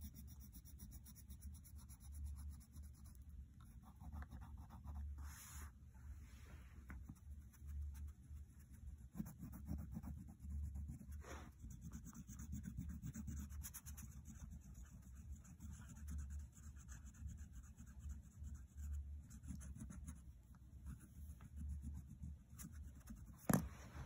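Faint scratching and rubbing of a crayon on paper, with one sharp click near the end.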